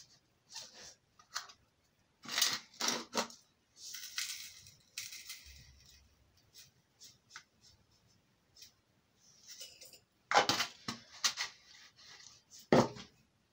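Dry ingredients going into a glass mixing bowl: a series of sharp clicks and knocks, and a short rustling pour of granules about four seconds in.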